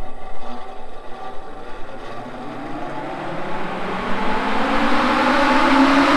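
Portable drum fan spinning up after being switched on: its motor hum rises steadily in pitch while the rush of air grows louder, loudest near the end.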